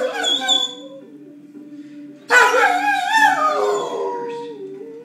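Weimaraner 'talking' for the ball: the end of one moaning howl, then a pause, then about two seconds in a long drawn-out howling moan that wavers up and down and slowly sinks in pitch. It is the dog's demand for the ball.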